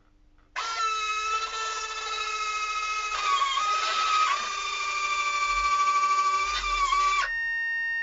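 Homemade electric screw-jack landing-gear retracts whining as they drive the two main legs up one after the other. The whine shifts in pitch about three to four seconds in and stops about seven seconds in. A steady electronic beep follows, the signal that the gear is shut and locked.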